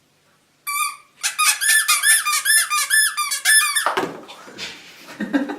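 A hand-held rubber squeaker toy squeezed over and over: a single squeak, then a fast run of about four high squeaks a second, each dropping in pitch. It stops just before four seconds in, and quieter muffled sounds follow.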